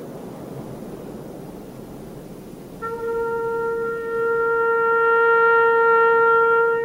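A steady hiss, then a single long note from a wind instrument in the soundtrack music starts about three seconds in and swells louder a second later, held on one pitch.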